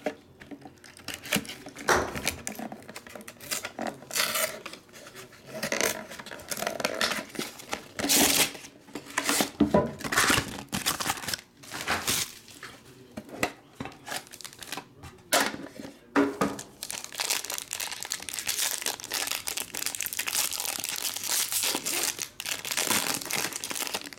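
Plastic shrink-wrap and foil card-pack wrapping being torn open and crinkled by hand: a string of sharp, irregular rips and rustles, turning to steady continuous crinkling for the last several seconds.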